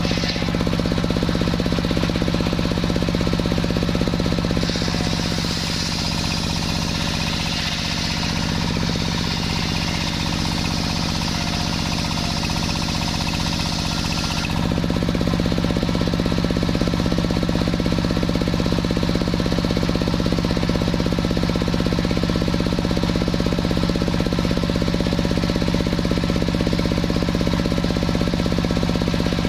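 Engine-driven sawmill running steadily with a low, knocking drone. A brighter high hiss sits over it from about five seconds in, and at about fifteen seconds the hiss drops away and the low drone grows stronger.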